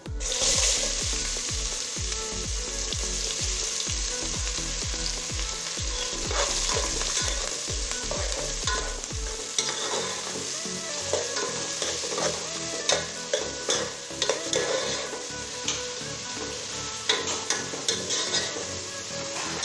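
Whole spices and chopped onions sizzling in hot oil in an aluminium pressure cooker, stirred with a steel spoon. From about halfway, the spoon clicks and scrapes against the pot in quick, uneven strokes.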